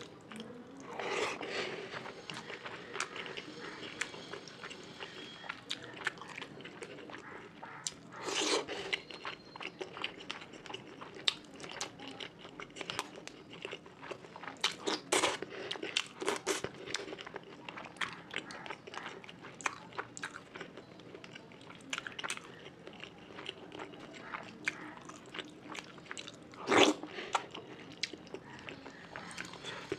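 Close-miked eating: a person chewing and biting mouthfuls of fish curry with rice, with many wet mouth clicks and smacks. A few louder bites stand out, the loudest about 27 seconds in.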